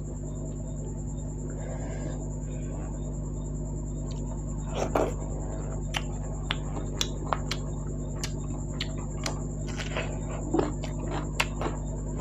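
Close-up mukbang eating sounds: scattered wet mouth clicks and lip smacks from chewing wheat dhido and goat meat curry, over a steady electrical hum.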